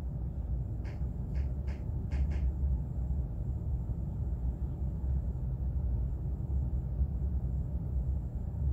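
Steady low rumble of room noise, with a few faint crackles of a sheet of paper being handled in the first two and a half seconds.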